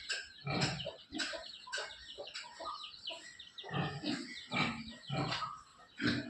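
Pigs grunting and calling, a string of short, rough calls one after another, loudest in a cluster about four to five and a half seconds in.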